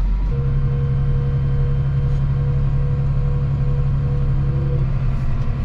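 Massey Ferguson 7618's six-cylinder engine heard from inside the cab, working under load as its PTO drives the K-Two muck spreader's beaters. A steady drone and a higher whine set in just after the start.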